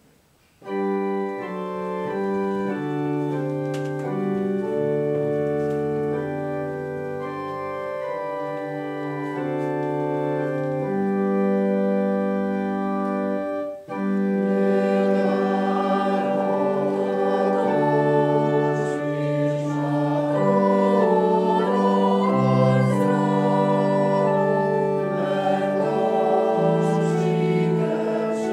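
Organ playing a hymn introduction in held chords, starting about a second in. After a short break about halfway through, the congregation starts singing the hymn with the organ accompanying.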